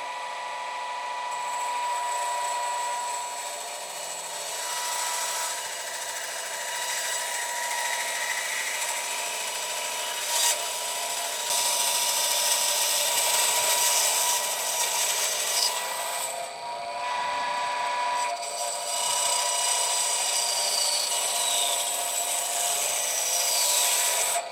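An electric power tool runs with a steady whine and works wood with a rough, hissing rasp. It eases off briefly a couple of times about two-thirds of the way through, then carries on.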